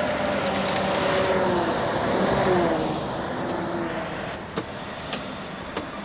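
Scania truck's diesel engine pulling a heavy load of logs through mud, its pitch sagging slowly about halfway through, then running quieter with a few short knocks near the end.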